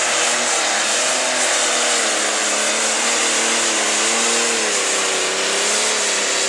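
Turbocharged diesel engine of a John Deere light pro stock pulling tractor running flat out under the load of a pulling sled. Its pitch rises and falls repeatedly over a dense, loud rush of turbo and exhaust noise.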